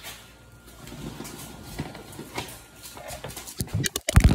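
Handling noise from a phone being carried and jostled: scattered soft knocks and rustling, then a cluster of loud thumps near the end as the phone is swung around.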